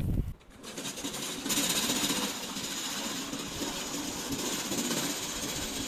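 Remote-control lawn mower's motor running after being switched on, getting louder about a second and a half in and then holding steady with a rapid mechanical rattle.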